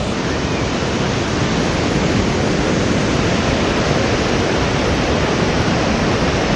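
Waterfall rushing with a loud, steady roar of falling water.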